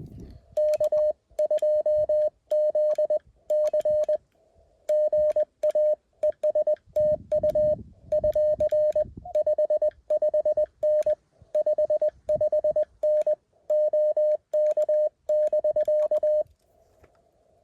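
Morse code from a Mountain Topper CW transceiver: one steady mid-pitched tone keyed in quick dits and dahs, grouped into words with short gaps, stopping about a second before the end. Faint receiver hiss at the same pitch sits between the groups.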